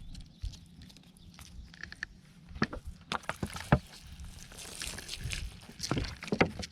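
Water sloshing and splashing, with several sharp knocks.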